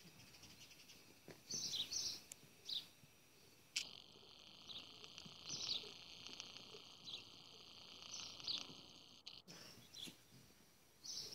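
Small birds chirping faintly: short high calls in little clusters every second or two.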